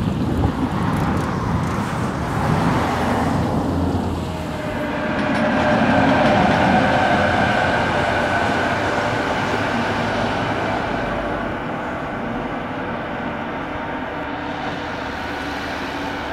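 Electric locomotive running light, passing at speed: a rumble of wheels on rail with a steady electric whine of several tones, loudest a few seconds in and then easing off slowly as it moves away.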